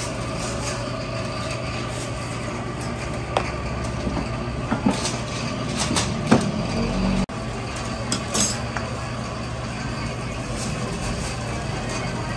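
Heavy cast-iron egg-cake molds clanking as they are flipped and handled over the fire, a handful of sharp metal knocks between about three and nine seconds in, over a steady low rumble.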